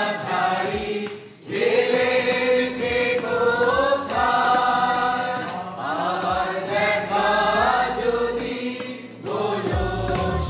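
A group of people singing together to an acoustic guitar, in long sung phrases with short breaks about a second and a half in and near the end.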